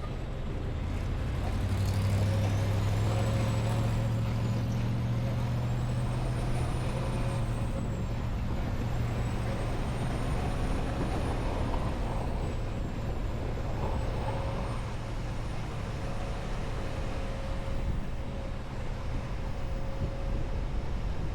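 Semi truck running with a steady low engine drone. The drone swells for several seconds about two seconds in, over a faint steady higher tone.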